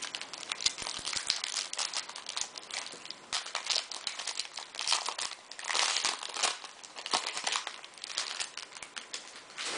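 Foil wrapper of a Bowman jumbo baseball card pack being torn open and crinkled by hand: a dense run of crackles and rustles, loudest about six seconds in.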